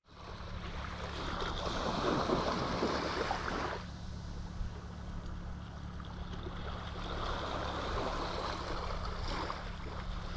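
Water washing against the shore, swelling twice, over a steady low hum.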